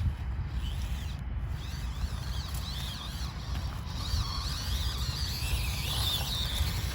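Axial SCX24 Deadbolt micro crawler's small electric motor and gears whining, the pitch wavering up and down with the throttle and growing stronger about four seconds in, over a steady low rumble.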